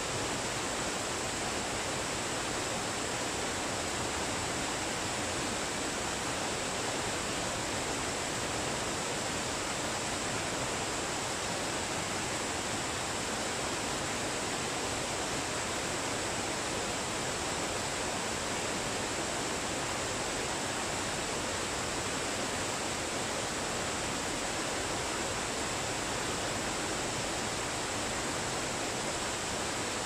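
Waterfall: water pouring and splashing in a steady, unbroken rush.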